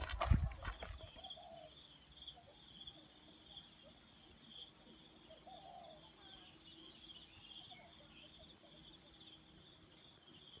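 Insects droning steadily in dense summer scrub: a continuous high whine over a lower, pulsing trill. A few footsteps on the dirt trail thud at the very start.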